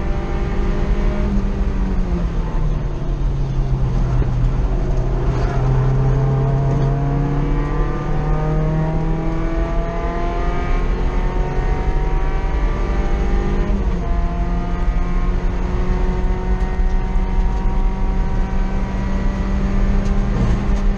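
2.5-litre four-cylinder engine of an NC Mazda Miata heard from inside the cabin on track. The engine note dips about a second in, then climbs slowly in pitch for several seconds as the car pulls through a gear. It jumps up in pitch about two-thirds of the way through and then holds steady, with tyre and wind noise underneath throughout.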